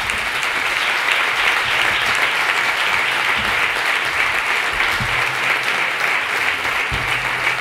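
Large seated audience applauding steadily: dense, sustained clapping from many hands.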